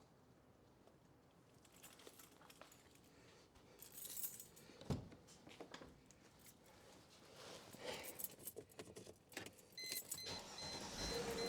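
Car keys jangling and being handled, with a dull thud about five seconds in. Near the end the car's electronic warning chime starts, beeping at an even pace, as the key is about to start the engine.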